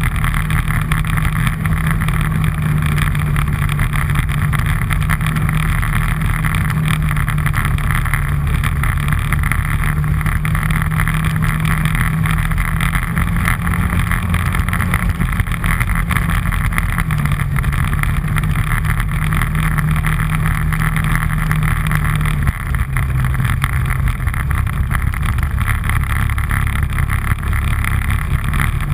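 All-terrain vehicle engine running steadily while riding. Its pitch steps down slightly twice, in the middle and again about three-quarters of the way through.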